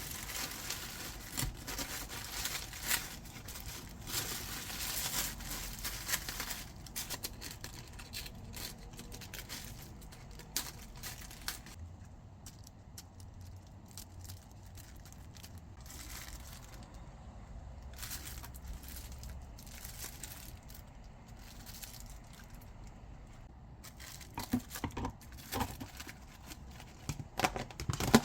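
Kitchen handling sounds: rustling and crinkling as of packaging, with scattered clicks. A run of louder knocks comes near the end.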